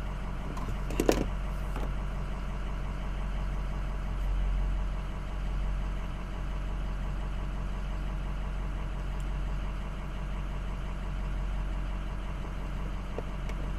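Pickup truck engine idling steadily, heard from inside the cab, with a short knock about a second in.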